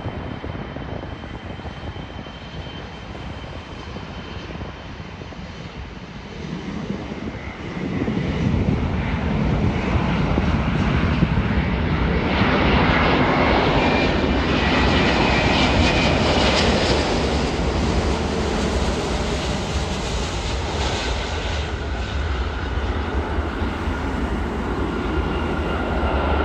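Jet airliner engines passing close by: a steady rush that swells sharply about eight seconds in and stays loud, with a thin high whine over it.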